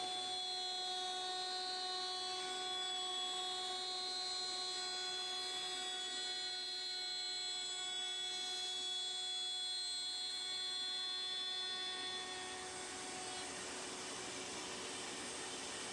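Router table's router motor running with a steady high whine over a rushing noise while a mortise is cut in a breadboard end. The whine fades out about three quarters of the way through, leaving the steady rushing noise.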